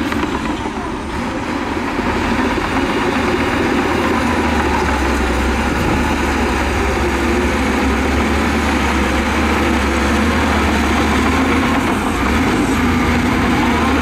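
Heavy diesel engine of earthmoving machinery running steadily, with a deep, even hum.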